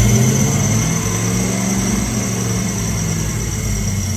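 GM LS1 5.7-litre V8 idling fast just after starting, easing down a little in the first second or so and then running steadily.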